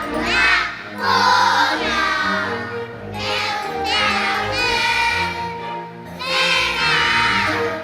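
A group of young children singing a Korean children's song together, in sung phrases over instrumental accompaniment with a bass line.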